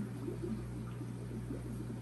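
Aquarium running: steady low pump hum under constant soft bubbling and trickling of water.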